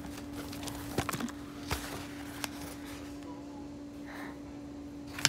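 A few scattered light clicks and taps from handling a packaged pet vest and leash on its cardboard and plastic card, over a steady hum.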